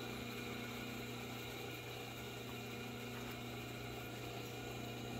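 Steady low electric hum of an industrial sewing machine's clutch motor running idle, with the machine itself not yet engaged.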